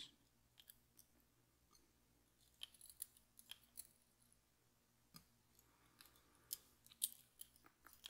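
Faint, scattered light clicks and ticks of metal tweezers picking up and setting down the small pins of a disassembled lock on a tray. The clicks are irregular and come mostly in the middle and later part.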